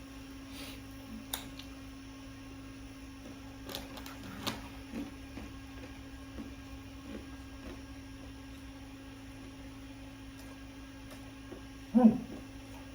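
A steady low electrical hum with scattered faint clicks and mouth sounds of someone eating tacos, and a short louder low sound near the end.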